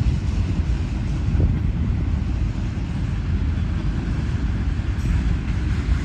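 Freight train of autorack cars rolling past, its wheels on the rails giving a steady low rumble.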